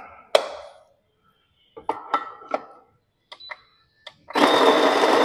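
Electric burr coffee grinder: a few clicks as its buttons are pressed, then about four seconds in the motor starts and grinds the coffee beans with a loud, steady whir and a high whine on top.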